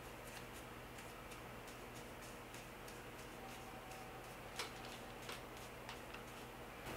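Faint light clicking of a hand tool being worked at an engine's cylinder head, a few clicks a second, with three sharper clicks a little over halfway through.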